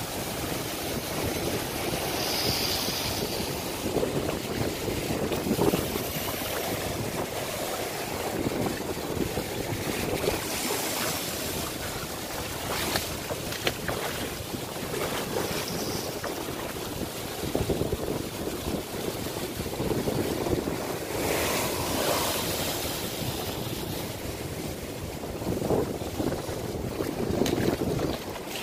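Ocean surf breaking over a coral reef and seawater washing in a hole in the limestone rock, the noise rising and falling in surges, with wind buffeting the microphone.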